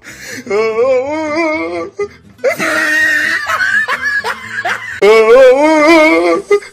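A dog howling in long wavering, sing-song howls, with bursts of laughter in the middle.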